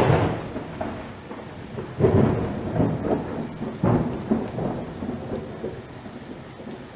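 Intro sound effect of thunder and rain: three rolls of thunder about two seconds apart, each starting suddenly and fading slowly, over the hiss of rain.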